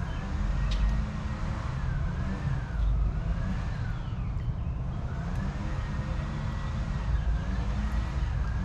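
A siren wailing, its pitch sweeping up and down in slow repeated cycles, over a steady low rumble of road traffic.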